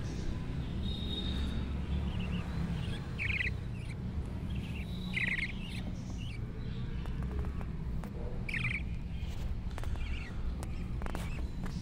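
Budgerigar chicks giving several short, high chirps, spaced out a second or more apart, over a steady low rumble.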